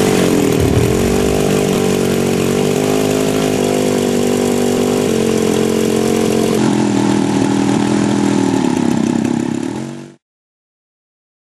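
Small piston engine of the Spoonbill SP-80 UAV running just after starting, driving its propeller. Its pitch dips briefly under a second in, then holds steady. The sound cuts off suddenly about ten seconds in.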